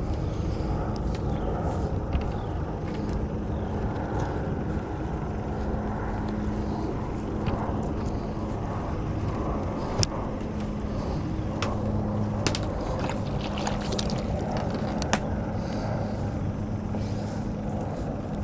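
Steady low rumble with a faint constant hum, and a few sharp clicks and knocks in the middle from handling a fish and a rope stringer.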